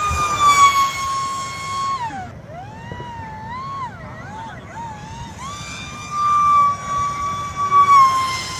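Homemade RC plane's brushless electric motor and small propeller whining at high throttle. It holds a steady pitch, then about two seconds in the throttle is cut and blipped so the whine swoops down and wavers up and down. About five and a half seconds in it climbs back to a steady high whine.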